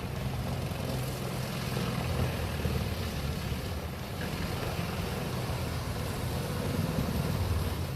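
Vermeer HG6800TX horizontal grinder running, a steady low engine drone with a noisy hiss over it.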